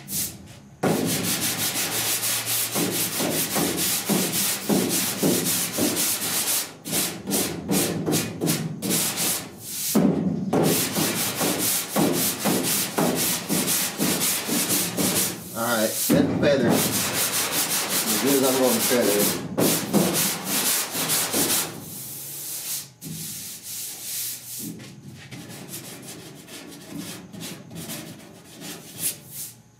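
Hand block-sanding body filler on a steel truck cab panel, the sandpaper rasping in quick back-and-forth strokes with a few short pauses. The strokes turn lighter and quieter for the last several seconds.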